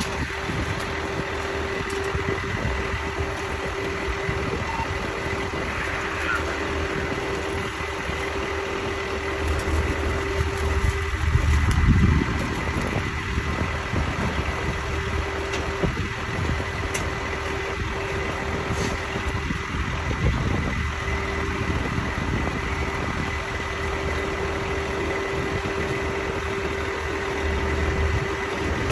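An engine idling steadily, a low rumble with a constant hum over it, swelling briefly about twelve seconds in.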